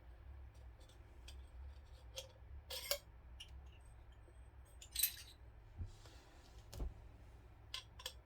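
Scattered light metallic clicks and clinks as the metal parts of a Banish suppressor are handled and worked against each other, with a couple of sharper clinks near the middle. The parts are being tried together to seat the locking teeth.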